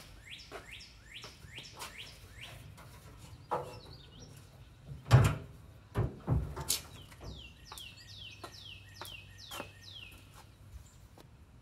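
The hood of a 1952 Dodge Coronet being unlatched and swung open: a few metal clunks and knocks in the middle, the loudest about five seconds in. Throughout, a songbird repeats quick descending chirps, in a fast run in the second half.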